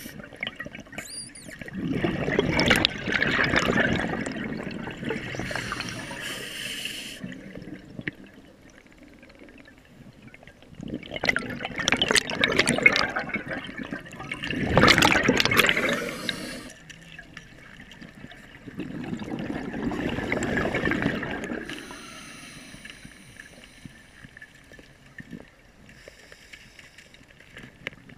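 A scuba diver breathing through a regulator, heard underwater: four loud rushes of exhaled bubbles, with quieter hissing inhalations between them.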